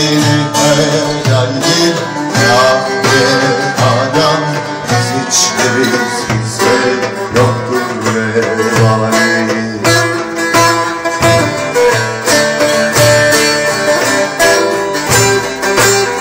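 Bağlama (saz) and darbuka playing a Turkish folk tune (türkü) together, with no singing. The bright plucked melody of the long-necked lute rides over a steady rhythm of hand-struck goblet-drum strokes.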